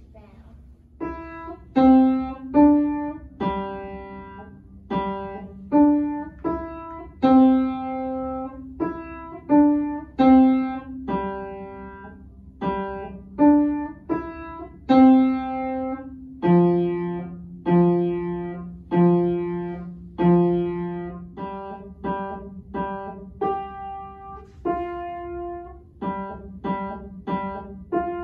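Upright acoustic piano played by a young beginner, starting about a second in: a simple tune struck note by note, with a lower note in the other hand under many of them. A few longer held notes come in the middle.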